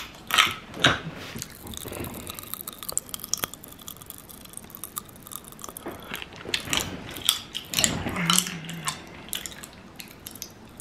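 Popping candy crackling in a mouth held up close to the microphone: many small, irregular sharp pops and clicks, with some chewing.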